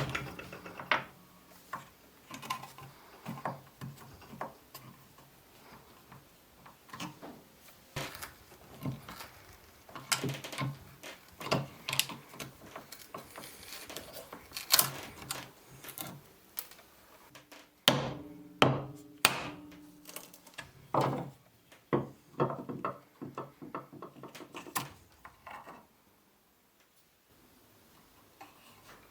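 Irregular knocks, taps and clicks of hand work on an old handsaw, wood and metal parts being handled and struck, with a brief low ring under a few of the knocks. The noise stops for a couple of seconds near the end.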